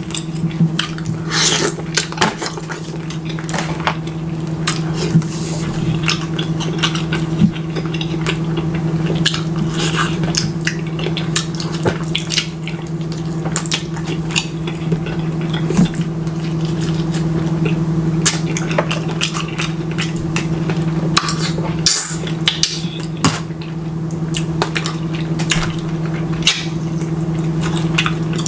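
Close-miked chewing and wet mouth smacking while eating chicken off the bone, over a steady low hum.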